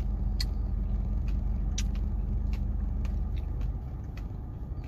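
Steady low rumble of a car engine running, with a few light clicks and taps now and then. The rumble eases a little near the end.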